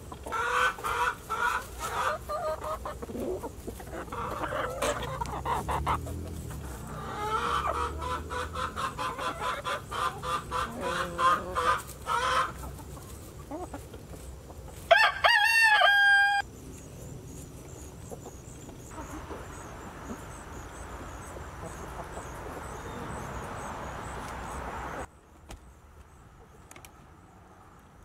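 Backyard hens clucking, many short calls in quick runs through the first twelve seconds. About fifteen seconds in a rooster crows once, loud and about a second and a half long. After that only a steady background hiss, which drops off suddenly near the end.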